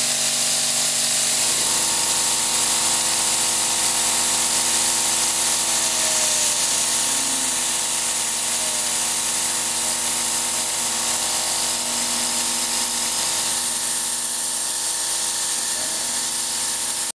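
Milling machine spindle running a small end mill through a brass gear, cutting out the spokes: a steady whine with several fixed tones and a high hiss of cutting, unbroken throughout.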